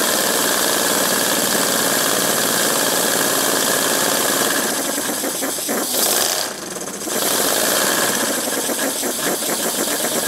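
Small homemade three-cylinder radial compressed-air engine running with a steady hiss and clatter, then slowing as the air is throttled back toward a slow idle, so that its exhaust puffs separate into distinct beats. Around the middle the sound dips briefly before the slower, even puffing resumes.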